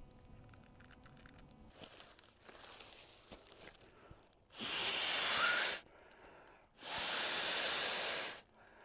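Two long breaths blown by mouth into the valve of an inflatable air sleeping pad, each a steady rush of air lasting a second or more, about a second apart, beginning about halfway through after a few quiet seconds of faint handling as the valve is opened.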